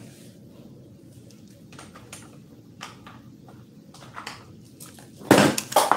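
Small hard objects clattering and clinking, a few light clicks at first and then a loud burst of clatter near the end.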